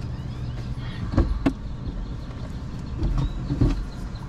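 Car engine idling, heard from inside the cabin as a steady low hum, with a few soft knocks and rustles about a second in and again near three seconds.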